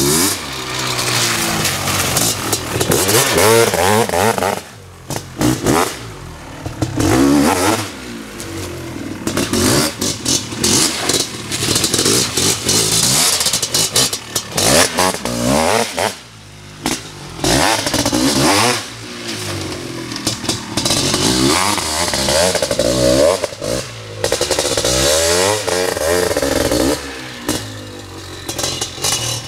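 Honda CR500's big single-cylinder two-stroke engine being ridden hard: the note climbs in pitch again and again under full throttle, then falls away for a moment each time the throttle shuts off.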